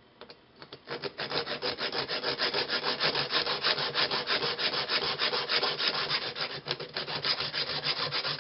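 Hacksaw cutting through a metal rod: a few hesitant strokes, then fast, even back-and-forth rasping strokes, about six a second, from about a second in.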